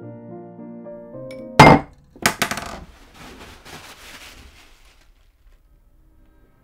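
Piano music breaks off, and a glass ink bottle is knocked over on a wooden desk. There is one sharp, loud knock, then about half a second later a clattering hit with a clinking rattle that fades out over the next couple of seconds.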